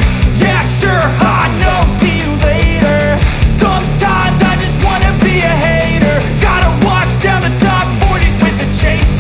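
Background rock music with a steady beat, distorted guitars and a melodic vocal-like line.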